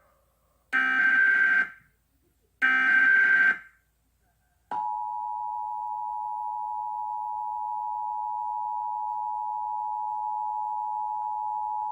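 Emergency Alert System test being broadcast: the last two of the three SAME header data bursts, each about a second of buzzy digital warbling, then the steady two-tone EAS attention signal, which starts a little over a second after the second burst and holds unbroken to the end.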